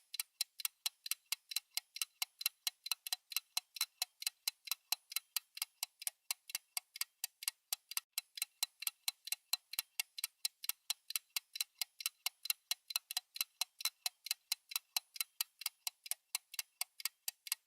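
Ticking sound effect of a countdown timer: sharp, high clicks at an even pace of about five a second.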